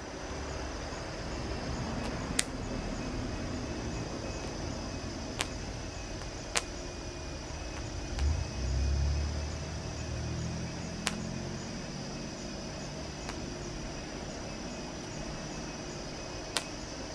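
Popcorn kernels popping under a mound of molten lava, single sharp pops a few seconds apart, over a steady hiss. A low rumble comes and goes about halfway through.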